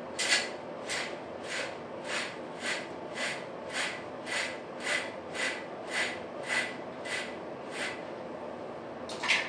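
A person breathing hard in a quick, even rhythm, about two sharp breaths a second, that stops about eight seconds in, followed by one louder breath near the end.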